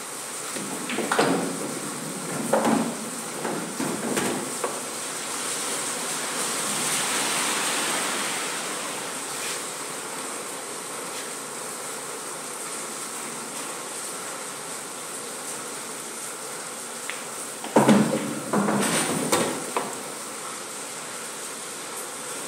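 Pool balls clacking on a coin-operated pool table: the cue striking the cue ball and the balls knocking together, in a run of sharp clacks about a second in and another run about eighteen seconds in, over a steady background hiss.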